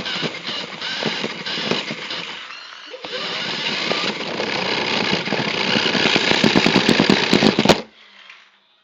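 Toy RC cars' electric motors and wheels running hard, a dense rattling whirr that stops briefly about three seconds in, picks up again with sharp clicking knocks near the end, and then cuts off suddenly.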